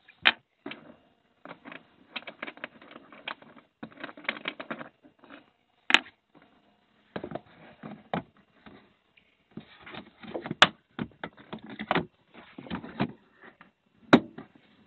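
A van interior panel being worked loose by hand: irregular clicks, knocks and rattles, with a few sharp snaps as its clips let go.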